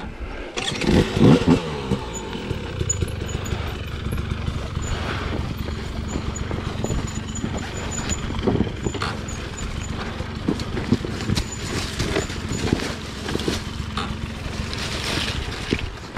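Husqvarna enduro dirt bike's engine running as the bike rides down a rough dirt trail, rising briefly about a second in, with scattered knocks and rattles from the bike over the bumps.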